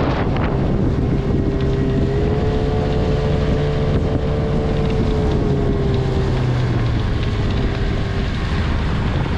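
Boat motor running under way, with wind buffeting the microphone; a steady engine whine drifts up slightly and then fades out about eight seconds in.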